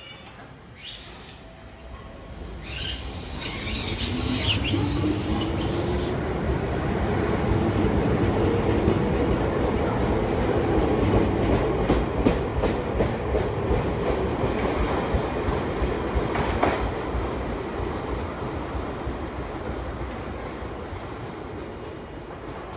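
Chichibu Railway 5000-series electric train pulling away from the platform and passing close by. Its motors give a whine that climbs in pitch as it gathers speed, the wheels click over rail joints as the cars go past, and the train then fades as it runs off.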